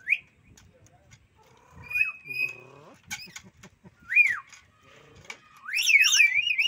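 Black-capped lories squabbling: shrill whistled calls that rise and fall, a few short wing flaps, and a louder run of warbling screeches about six seconds in.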